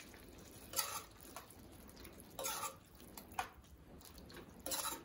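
A metal ladle stirring a thick bean-and-brinjal curry in a metal kadai: four short scraping swishes spread over a few seconds.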